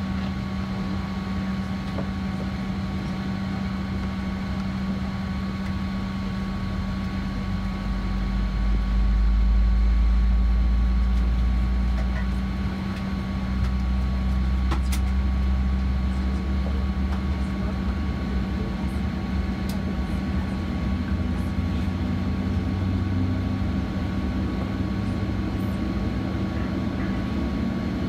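Steady drone inside a Boeing 737-900 airliner cabin, with a deep rumble that swells about eight seconds in, dips briefly around thirteen seconds and then carries on.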